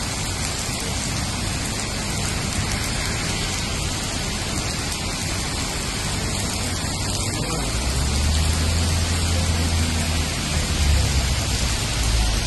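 Heavy rain pouring onto a street and pavement, a steady hiss of downpour. A deep low rumble joins in a little past halfway and lasts a few seconds.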